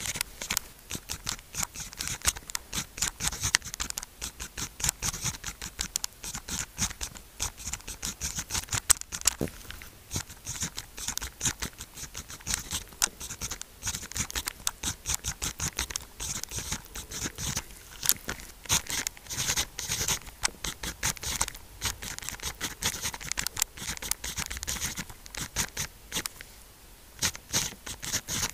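Pen writing on sticky-note paper close to the microphone: quick scratchy strokes in a steady stream, with a brief pause near the end.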